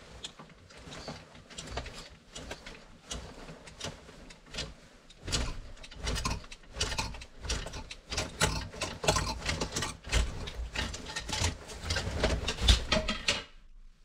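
Irregular rapid clicking and rattling, like a small mechanism or loose objects knocking. It grows denser and louder about five seconds in and stops abruptly near the end.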